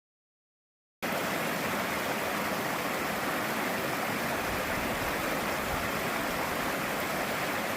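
Steady rushing water, an even roar with no swells, starting abruptly about a second in.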